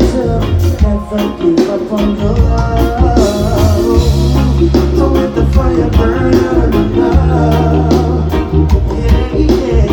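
A reggae band playing live through a festival PA: a lead singer over bass guitar, guitar and a steady drumbeat.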